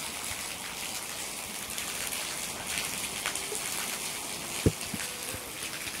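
Steady rushing of a waterfall, with one short knock a little past the middle.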